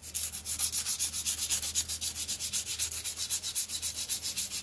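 Sandpaper scrubbing the steel flywheel of a four-stroke lawnmower at its magnet in quick, even back-and-forth strokes, about eight or nine a second. It is rubbing the rust down to bare metal so the magnet and ignition coil can again make a strong spark.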